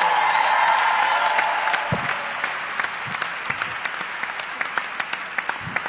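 Audience applauding, the clapping loudest at first and slowly thinning out.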